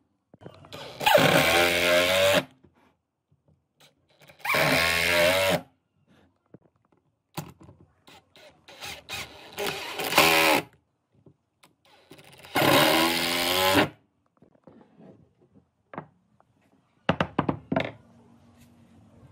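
Cordless drill driving screws into wood in four short runs of about a second each, the motor's whine winding up and back down each time. Between the runs come scattered knocks and clicks of wood and tools being handled.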